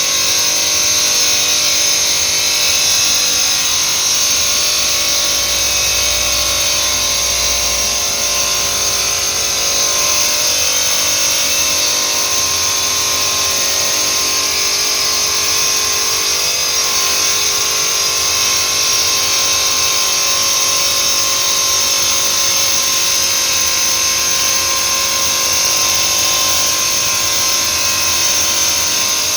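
Stone-cutting machine running steadily, with a loud, even high-pitched whine that holds without a break.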